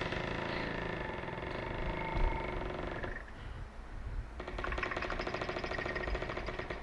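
Mobile phone buzzing on vibrate for an incoming call: two long buzzes, about three seconds each, with a pause of just over a second between them.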